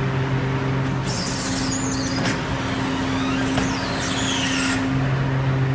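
A hydraulic moving-floor (walking-floor) trailer bed running, its aluminium slats conveying a load, with a steady machine hum. From about a second in until near the end, a high, wavering squeal rises over the hum.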